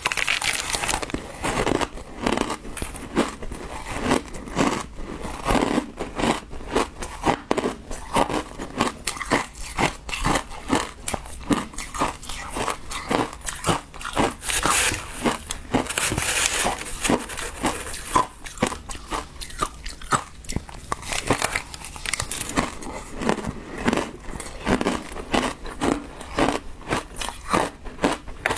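Close-miked crunching and chewing of shaved ice topped with passion fruit pulp, a rapid, continuous run of crisp crunches.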